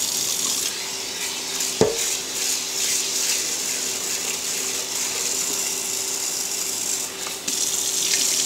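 Tap water running into a rice cooker's inner pot while rice is swirled and rinsed in it by hand, the water splashing over into a stainless steel sink. A single sharp knock of the pot sounds about two seconds in.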